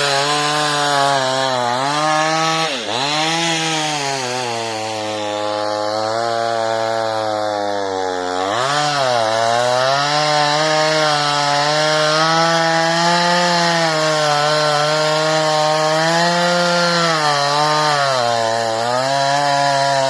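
Chainsaw running continuously at high revs while cutting a tree, its engine pitch dipping sharply and recovering about three seconds in and again about nine seconds in as the chain bites into the wood.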